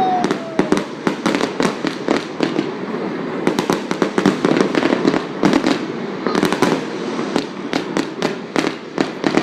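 Fireworks display: a dense, irregular barrage of sharp bangs and crackling reports, several a second.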